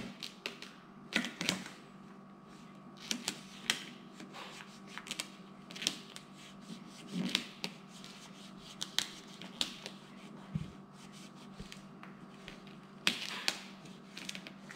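Vinyl tint film crackling and ticking in scattered bursts as it is pressed and tucked by hand around a car tail light.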